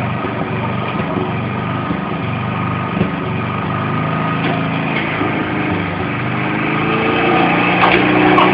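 Petrol lawn mower engine running steadily, getting a little louder near the end.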